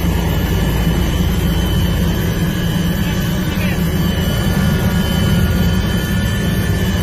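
Helicopter cabin noise in flight: the engine and rotor drone steadily and loudly, with a constant high whine on top.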